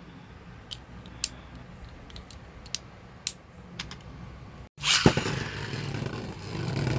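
Sharp plastic clicks at uneven intervals as the parts of a Beyblade X spinning top are handled. After a brief dropout, a louder steady rushing noise follows, with one sharp clack just after it starts.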